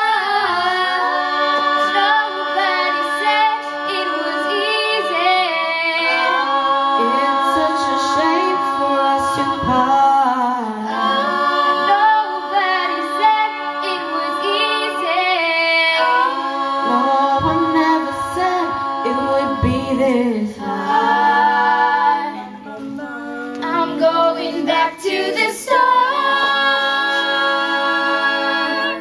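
An a cappella group of mostly female voices singing in close harmony, with long held chords. The singing stops abruptly right at the end, as the song finishes.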